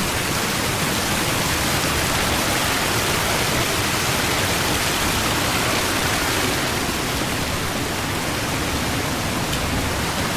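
Steady rush of Savage Falls, a waterfall running strong after heavy rain, with its creek water flowing over the rocks.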